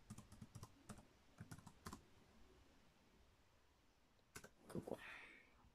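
Faint typing on a laptop keyboard: a quick run of keystrokes, a pause, then a few more key clicks about four seconds in, with a brief soft swish.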